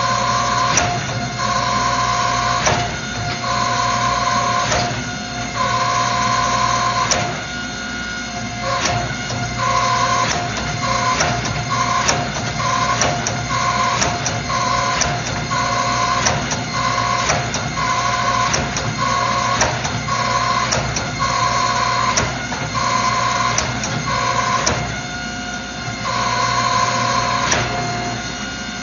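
Hydraulic forging press running in short repeated strokes as a Damascus billet is drawn out: a steady pump hum with a higher whine that cuts in and out about once a second, and sharp clicks and knocks between strokes.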